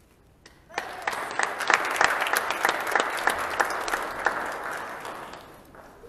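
Congregation applauding in a large hall, starting just under a second in and dying away near the end.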